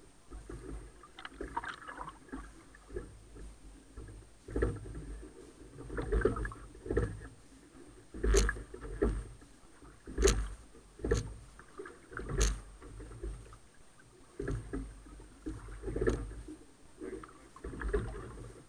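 Single sculling shell being rowed at a steady pace: the oars knock sharply in their oarlocks in a repeating cycle of about one stroke every two seconds, over a low rumble of water and wind.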